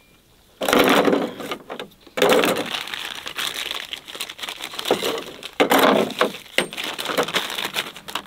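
Plastic bag crinkling and rustling as it is handled, in irregular bouts with short gaps, starting about half a second in.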